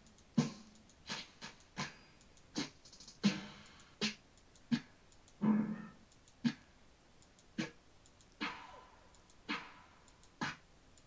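Snare drum one-shot samples auditioned one after another, about fourteen single hits spaced half a second to a second apart. Each is a different snare; most are short and crisp, and a few carry a longer ringing tail.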